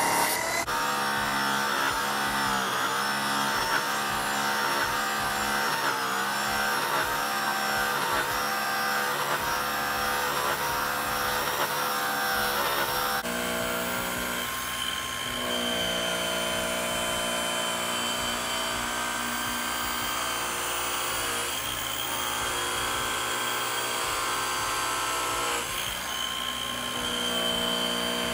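Makita right-angle rotary polisher running steadily as its buffing pad is worked over an aluminium wheel. Its whine dips in pitch now and then under load, and its tone changes abruptly about halfway through.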